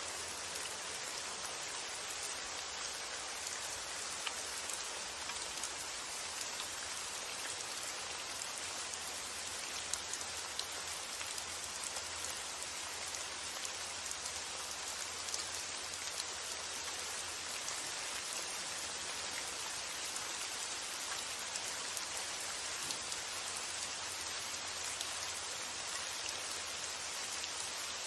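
Steady rain falling, a dense even hiss with scattered sharper drop ticks. A faint low rumble sits underneath for the first half and then fades.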